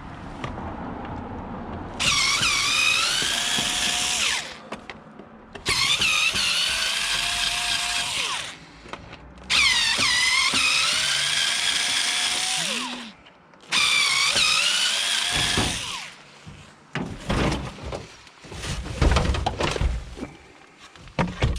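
Cordless power drill run in four short bursts of about two to three seconds each, the motor whine rising as it spins up and falling away as it stops, as parts of a scrapped item are taken apart. Irregular knocks and clatter of handled parts follow near the end.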